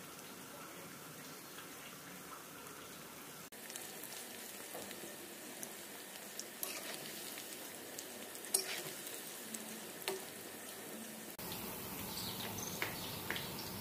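Battered paneer pieces deep-frying in hot oil: a steady sizzle with scattered crackles and sharp pops. Near the end, at a cut, the sizzle gives way to a different background with a few faint high chirps.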